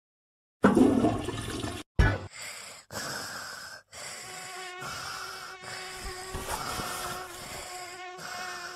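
A toilet flush, a loud rush of water lasting about a second, ends in a short thump. Then comes a steady, thin insect buzz like a mosquito or fly, broken by a few brief pauses.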